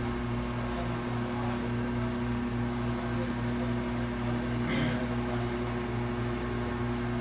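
Steady electrical machine hum with several constant tones, the lowest throbbing a couple of times a second.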